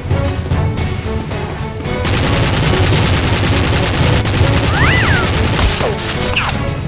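Action background music with a steady beat. From about two seconds in, a dense stream of rapid gunfire sound effects is laid over it, stopping near the end.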